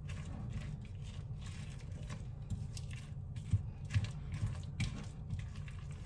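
Spatula stirring thick apple fritter batter in a mixing bowl, giving soft scrapes and squishes against a steady low hum.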